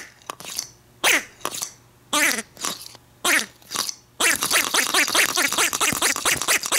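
Pink cat Oshaberi Piropiro Doubutsu talking squeeze toy squawking as it is squeezed, its tongue shooting out: each squeeze gives a squeal that falls in pitch, like a little voice. The squeals come singly about every half second. From about four seconds in they come in a fast run of several a second.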